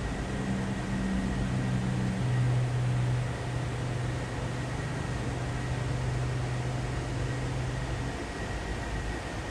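Steady indoor ventilation hiss with a low mechanical hum that drops away about eight seconds in.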